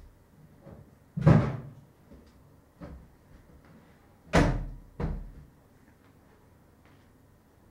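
Thuds and knocks of a low built-in cupboard being handled, its doors shutting: four separate knocks, the loudest about a second in and at about four and a half seconds.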